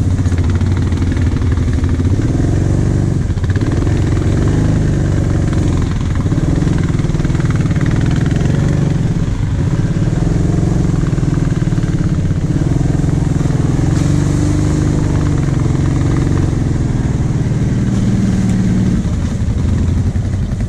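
Quad bike engine running under throttle on a muddy trail, the revs dipping and climbing again several times as the rider eases off and accelerates.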